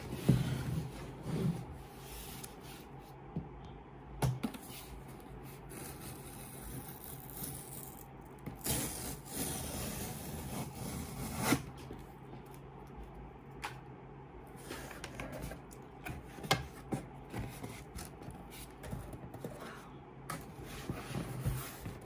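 Hands handling product packaging: cardboard and plastic rubbing and scraping, with scattered taps and clicks and a longer stretch of rustling about nine seconds in.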